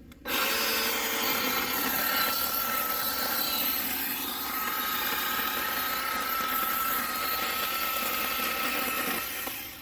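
Craftsman 10-inch 20-volt cordless electric chainsaw running at full speed and cutting a small tree stump off level with the ground, with a steady high whine. It starts abruptly and winds down near the end.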